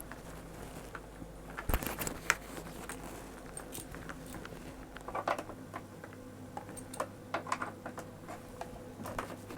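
Irregular small clicks and taps of a soldering iron and station being handled on the bench, over a faint steady hum; the sharpest clicks come about two seconds in and a busier run of taps follows from about halfway.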